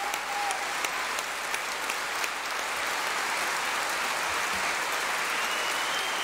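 A large crowd applauding steadily, with a few sharper individual claps standing out in the first two seconds.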